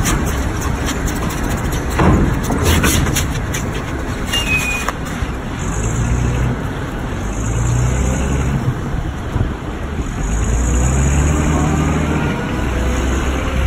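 Forklift engine running under load while carrying a pallet across a steel ferry ramp, its pitch rising and falling a few times with the throttle. A sharp metallic knock about two seconds in.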